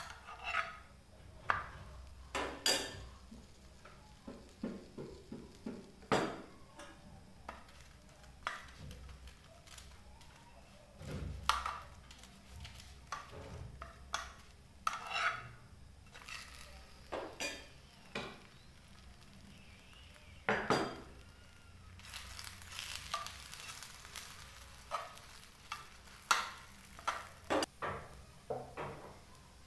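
Metal spoon and spatula clicking and scraping against a frying pan and metal plate while a chapati cooks, in scattered separate knocks. A short stretch of oil sizzling under the chapati comes about three-quarters of the way through.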